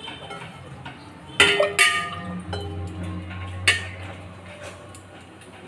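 A steel bowl clinking and knocking against the rim of an aluminium cooking pot as washed rice is tipped in: four ringing metallic clinks, the loudest about a second and a half in.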